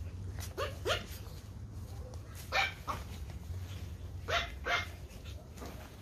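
Pomeranian puppy yapping: short barks in three quick pairs about two seconds apart, with a fainter one near the end.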